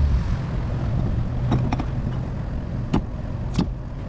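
Small fishing boat's engine running steadily under way, with a few sharp knocks or clicks about midway and near the end.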